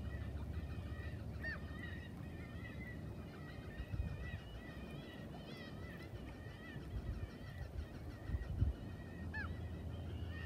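A flock of birds calling continuously, with many overlapping calls and a couple of short rising cries, over a low rumble with a few bumps.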